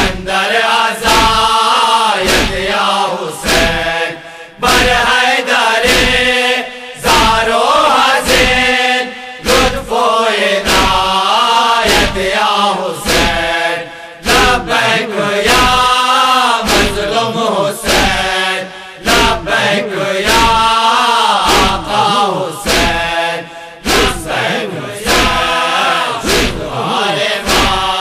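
A group of voices chanting a Shia lament (noha) in unison, over a steady beat of heavy thumps about every 0.7 s.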